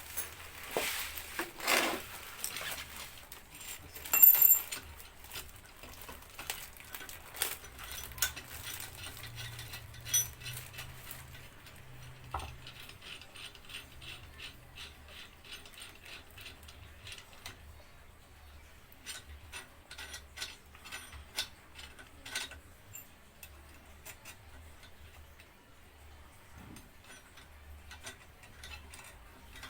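Metal hand tools clicking and clinking irregularly against the engine's cylinder head during valve removal, the loudest clink about four seconds in.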